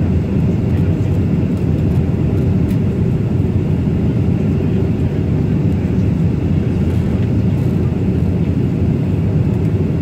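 Steady, loud low rumble inside a jet airliner's passenger cabin on the ground after landing.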